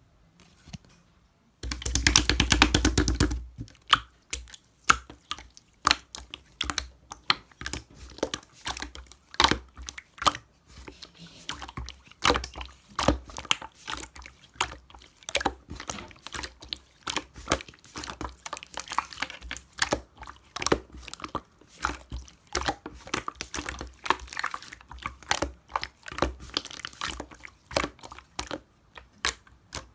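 Slime being squished and pressed by hand, giving a steady stream of wet clicks and pops. About two seconds in there is a louder, denser stretch of crackling that lasts a second or two.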